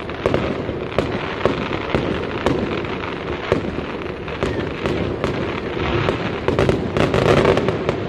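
Aerial fireworks going off in a rapid string of sharp bangs and crackles, about two or three a second, over a continuous rumble. It grows into a louder, denser burst of crackling about seven seconds in.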